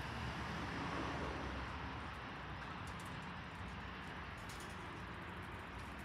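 Steady background rumble of distant traffic, with no train or crossing bell standing out.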